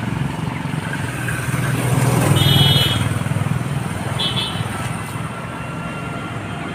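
An engine running, swelling to its loudest two to three seconds in and then easing off, with two short high beeps over it.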